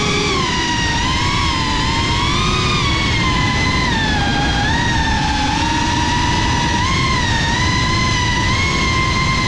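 FPV drone's electric motors and propellers whining, the pitch wavering up and down as the throttle changes, over a rough low rumble.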